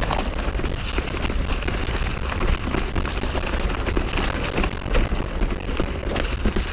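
Mountain bike riding over thick dry leaf litter: a dense crackle of leaves under the tyres mixed with the bike's rattle, and wind buffeting the microphone.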